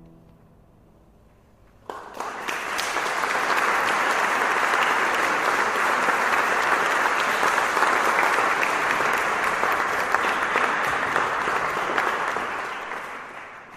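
Audience applause: after about two seconds of quiet it breaks out suddenly, holds steady, and begins to die down near the end.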